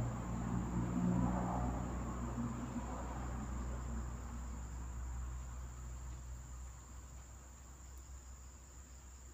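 Steady high-pitched insect chirring, with a low steady hum beneath it that thins out after about three seconds. The sound grows quieter toward the end.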